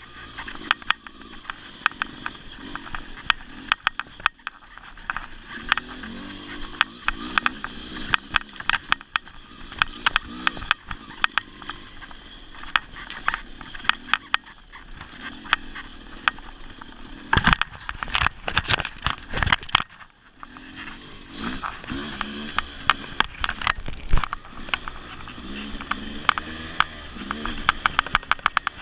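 Off-road dirt bike engine revving up and down as it is ridden on a rough trail, with frequent knocks and clatters from the bike jolting over rocks and roots. A run of loud, rapid knocks comes about two-thirds of the way through.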